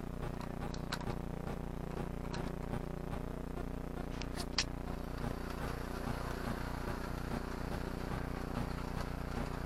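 OO gauge model locomotive running on the layout: a steady electric motor hum with scattered sharp clicks, the strongest about four and a half seconds in, as the wheels run over the track.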